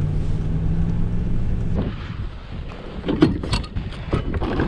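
Ram pickup truck engine idling with a steady low hum, which stops under two seconds in; then a few sharp clicks and knocks of gear being handled.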